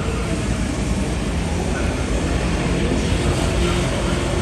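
Steady busy-city ambience: a continuous low rumble under a wash of street noise.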